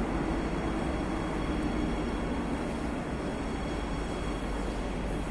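Steady rush and hum from a Madrid Metro train standing at the platform with its doors closed, easing slightly in level.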